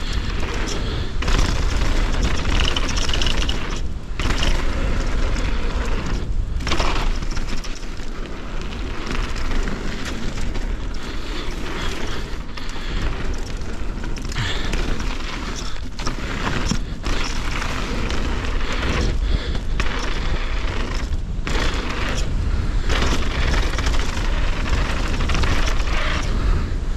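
Wind buffeting the GoPro's microphone while a 170mm enduro mountain bike rides fast down dirt singletrack. Under the wind rumble are the noise of tyres on the trail and frequent sharp clatters as the bike hits bumps.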